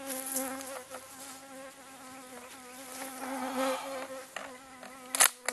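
An insect buzzing close by: a steady, even hum. Two short sharp clicks come about five seconds in.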